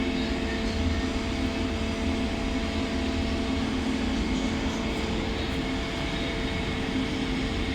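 CNC machine running steadily: a continuous machine hum with several steady tones over a low rumble, one of the mid tones dropping out about six seconds in.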